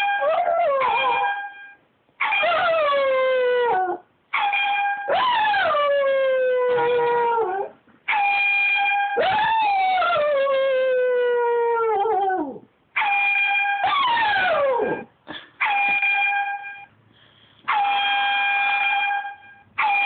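Shih tzu howling along with an air horn app: short, steady, flat-pitched horn blasts repeat every few seconds, and between and over them the dog gives several long howls, each starting high and sliding down in pitch.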